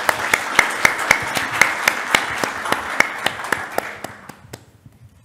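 Audience applauding, with many individual hand claps standing out, dying away about four seconds in.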